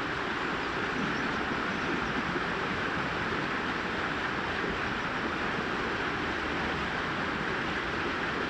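Water cascading through a small brook: a steady, even rushing and babbling.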